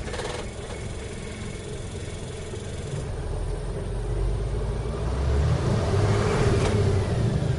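Mitsubishi Fuso 6D22 11.1-litre six-cylinder diesel idling just after starting, then revved up to about 2,000 rpm, its pitch and loudness rising over a few seconds. Near the end it starts to ease back down.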